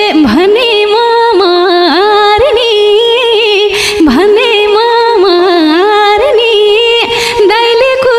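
A woman singing a long melodic line without clear words, gliding and wavering in pitch with brief dips, over a light percussion beat.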